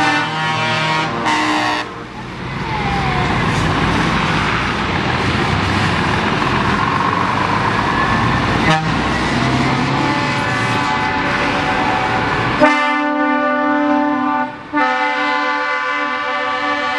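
Truck air horns sounding a loud, steady multi-tone chord, then a stretch of loud engine and tyre noise as tractor units pass close by. About thirteen seconds in the air horns sound again and are held for a few seconds, with one short break.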